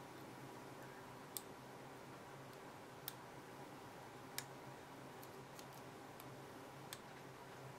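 Faint, scattered metallic clicks of a lock pick working the pin stack of a Commando padlock during single-pin picking, about four sharp clicks and a few weaker ones spread irregularly over a steady low hum.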